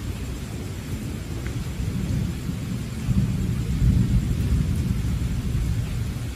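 Steady rain falling, with a low rumble that swells about three seconds in and eases off toward the end.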